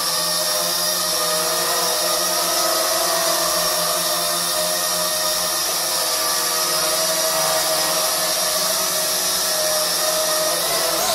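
JDRC JD-20S toy quadcopter hovering, its four small electric motors and propellers giving a steady whirring whine made of several tones over a bright hiss. The pitch shifts briefly near the end as the drone adjusts.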